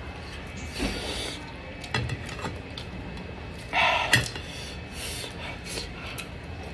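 Close-up eating sounds: fingers pulling apart a crisp fried fish on a plate and chewing, in scattered rubs and clicks. About four seconds in comes a louder short breathy burst from the open mouth, ending in a sharp click.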